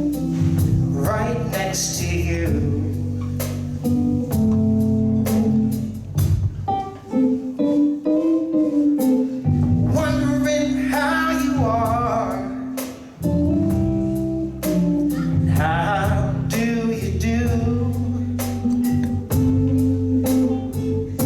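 Live blues band playing a slow song, with electric guitar, bass and drums. The lead line bends and wavers in pitch at several points.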